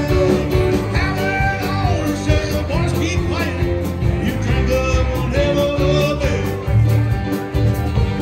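Live bar band playing a country-rock song: strummed acoustic and electric guitars, bass and drums keeping a steady beat, with a lead melody line held and bent over the top.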